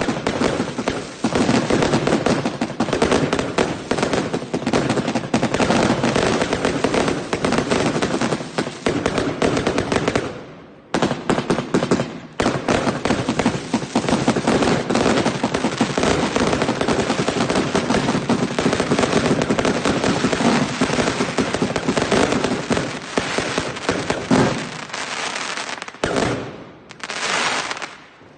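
New Year's fireworks going off in a dense, rapid string of bangs and crackles, like a firecracker chain or firework battery. It breaks off briefly about ten seconds in, resumes, then stops near the end after one last short burst.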